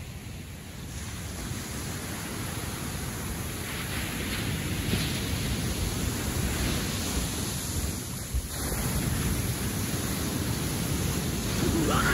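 Ocean surf breaking and washing up over a sandy beach, a steady rushing noise that grows louder through the stretch.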